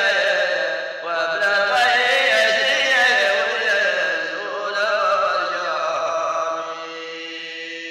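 Traditional folk chant from Umluj's heritage: a singing voice with a wavering, ornamented melody that settles into a long held note near the end.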